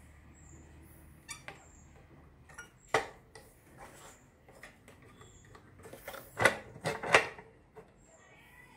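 Hands working a stopped scroll saw, turning the knob by the hold-down foot and handling the upper blade clamp: scattered sharp clicks and knocks, with a cluster of three loud ones about six and a half to seven seconds in. A faint low hum stops about a second in.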